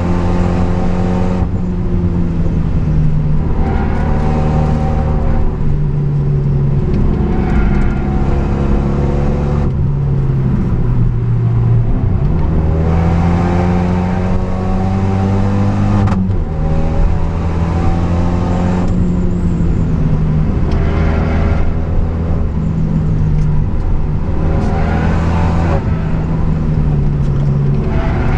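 Renault Mégane III RS's 2.0-litre turbocharged four-cylinder engine heard from inside the cabin under hard driving, its note climbing through the revs and dropping sharply at each of several gear changes and lifts.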